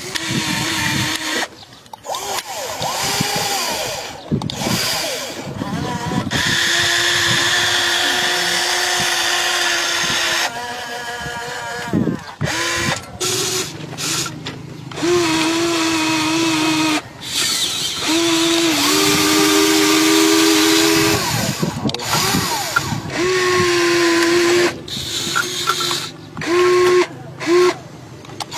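Small electric gear motors of a toy RC excavator whining as it drives its tracks and works its arm. The whine comes in stretches that start and stop, sometimes stepping up or down in pitch.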